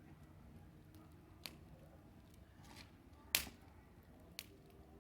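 Wood bonfire crackling: a few sharp, isolated pops over a low steady background, the loudest a little past the middle.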